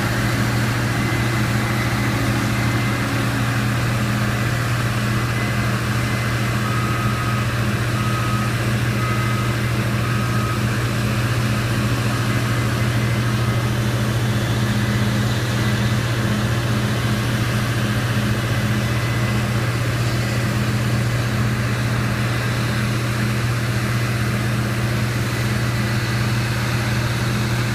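Combine harvester running steadily while cutting wheat, a constant low engine drone with machinery hum. A run of short, evenly spaced high beeps sounds about a quarter to halfway through.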